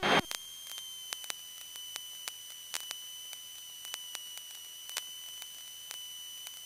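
Steady high-pitched electrical whine with faint irregular clicks in the aircraft's radio and intercom audio feed between transmissions; no engine sound comes through.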